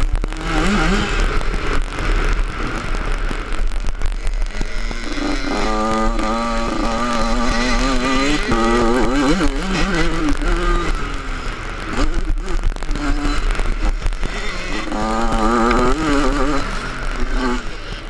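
Yamaha 85 two-stroke motocross bike engine revving hard, its pitch climbing and dropping again and again as the rider accelerates and shifts, loudest through the middle and again near the end.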